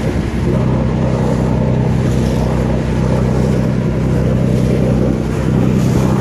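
Motorboat engine running steadily under way: a constant low hum under the rush of water and wind along the hull.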